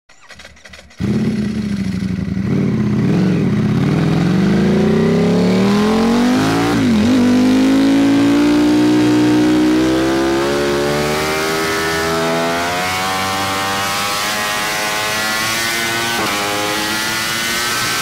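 Ducati Panigale V4 SP2's 1103 cc V4 engine through an Akrapovic slip-on exhaust, coming in loud about a second in under hard acceleration. The revs climb, dip briefly at an upshift about seven seconds in, then keep climbing more slowly, with smaller dips later.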